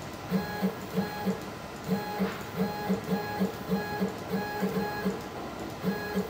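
CNC router's Z-axis stepper motor jogging the spindle and surfacing bit down toward the spoilboard in short steps: brief buzzes of one pitch, about three a second.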